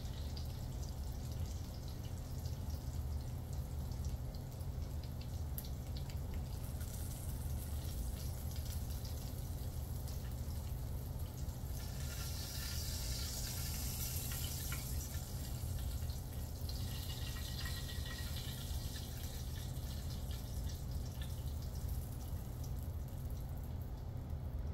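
Cajun sausage frying in butter in a pan: a steady sizzle that grows louder and brighter for a few seconds around the middle, over a steady low hum.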